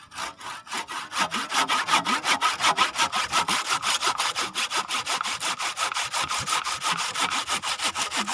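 Hand saw cutting through a bougainvillea trunk in fast, even back-and-forth strokes, about six a second.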